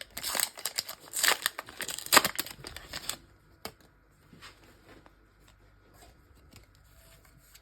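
Foil trading-card pack being torn open and its wrapper crinkled, for about three seconds, then only faint rustles and small clicks as the cards are handled.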